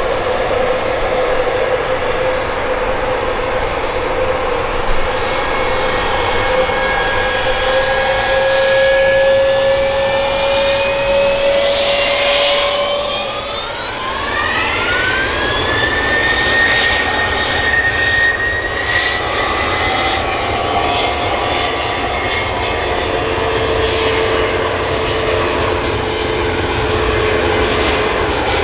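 Boeing 717's twin rear-mounted Rolls-Royce BR715 turbofans, running steadily at low power, then spooling up with a rising whine about halfway through and holding at the higher pitch as the jet sets off on its takeoff roll.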